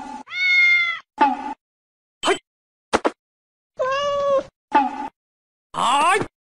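Domestic cat meowing repeatedly: about seven separate meows, some drawn out and some short and clipped, with silent gaps between them. The last one rises in pitch.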